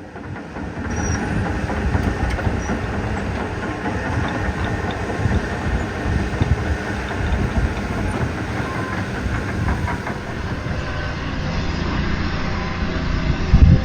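Heavy tracked construction machinery, such as an excavator or bulldozer, running with a steady deep rumble and irregular knocks.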